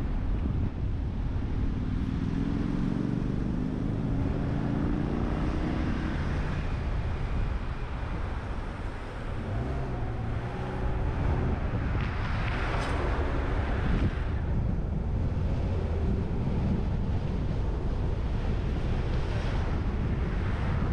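Car driving through town: steady engine and road rumble with wind buffeting the microphone. The engine note rises as the car pulls away from a roundabout in the first few seconds, and a louder rush of noise swells and fades about twelve seconds in.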